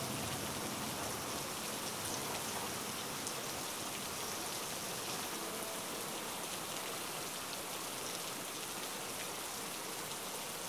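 Heavy rain pouring down, a steady hiss of falling water that holds even throughout.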